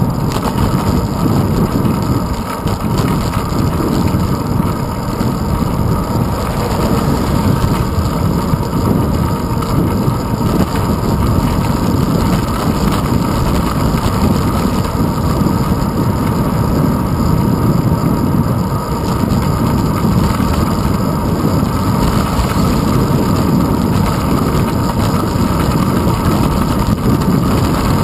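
Steady rumble of wind buffeting and road vibration picked up by a handlebar-mounted GoPro Hero 2 on a bicycle riding along a paved street.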